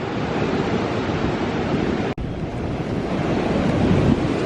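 Ocean surf washing in with strong wind buffeting the microphone, a steady heavy rush, cut out for an instant about two seconds in.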